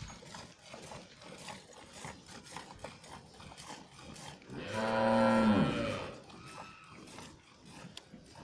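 A cow moos once, a single call of about a second and a half halfway through. Around it, faint quick spurts of milk hit a steel pail as the cow is milked by hand.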